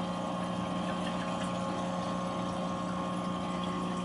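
Steady, even hum of a running BRS peristaltic dosing pump, its small motor turning the roller wheel slowly to push liquid through the tubing a drop at a time.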